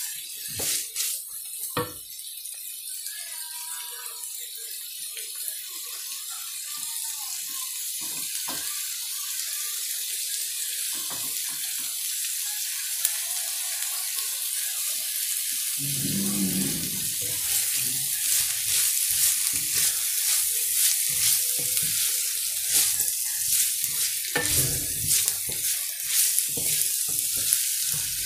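Pork belly and julienned carrots and green beans sizzling in a hot wok, stirred with a wooden spatula that clicks and scrapes against the pan. The sizzle grows steadily louder, with a couple of low knocks partway through.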